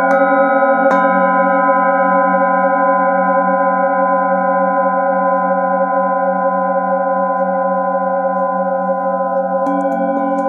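Metal singing bowls struck with a padded mallet: two strikes near the start, then several overlapping bowl tones ringing on with a slow wavering pulse and fading gradually, until new strikes come near the end.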